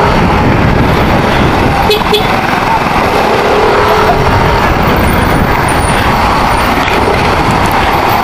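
Loud, steady motorcycle riding noise in traffic: wind on the microphone over the engine and the surrounding vehicles.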